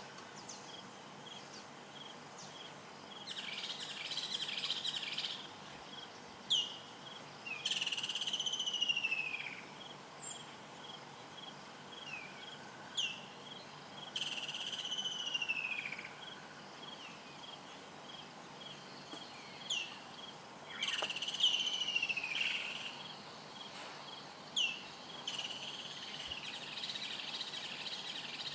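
A bird calling repeatedly in the bush: short, sharp downward-swooping notes and, about every six seconds, longer falling phrases of a second or two, with patches of chatter. A steady high insect drone runs underneath.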